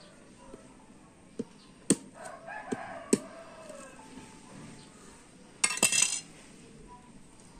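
A few sharp knocks as a knife blade is struck into a spiny durian husk to split it. A rooster crows, with a short, loud call about six seconds in.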